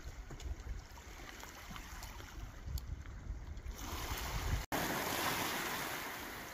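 Wind buffeting the microphone as sea water washes against the shore. About two-thirds of the way through, the sound briefly drops out, then comes back as a louder rushing hiss that slowly fades.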